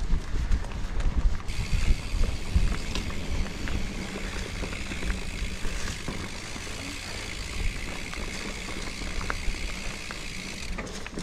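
Mountain bike being ridden on a dirt trail: a low rumble with many small rattles and clicks from the tyres and bike over the ground. A steady high buzz sets in about a second and a half in and cuts off sharply near the end.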